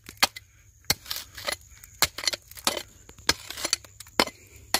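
Small hand pick chopping into a bank of red clay and gravel: about ten sharp, irregular strikes.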